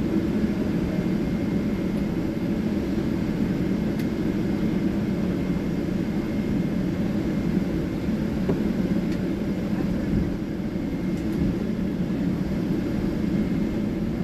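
Steady low rumble inside the cabin of a Boeing 777-300ER on the ground after landing, with a faint steady high tone above it and a few tiny ticks.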